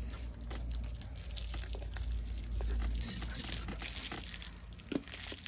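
Plastic packaging crinkling and rustling in the hands as someone tries, without success, to press it closed, with many small irregular crackles over a low steady rumble.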